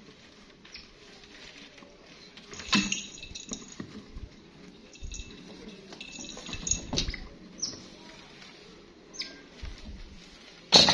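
Pet otter scrabbling and clambering about on a wooden bench: scattered light taps and scratches of claws and feet on the boards. A sharp knock near the end.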